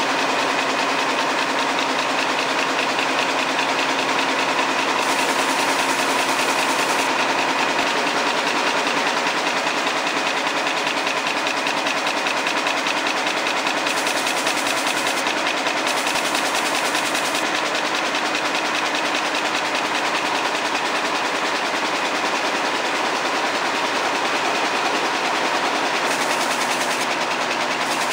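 Air-jet weaving looms running at full speed: a loud, steady mechanical clatter with a rapid, even beat and a continuous hiss.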